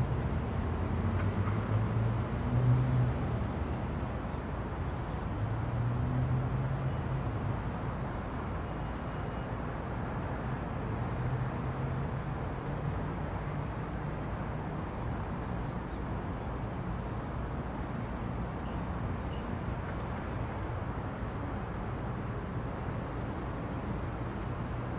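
Steady low rumble of distant city traffic with an even hiss, swelling a little a couple of times in the first third.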